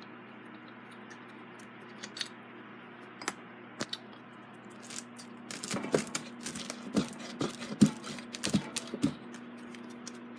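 Metal parts of an Emerson 77648 fan's base being handled on a workbench: a few scattered clicks, then a quick run of sharp clinks and knocks for about three seconds in the second half.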